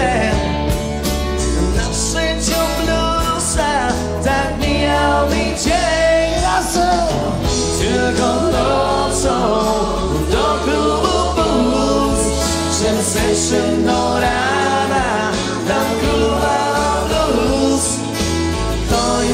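Live wedding dance band playing a song, a singer's voice over the band with a bass line underneath.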